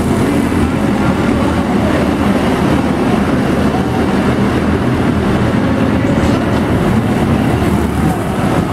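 Engines of a pack of small stock-style arena race cars running together around an indoor oval: a loud, continuous drone of several engines at once, their pitches rising and falling as the cars accelerate and pass.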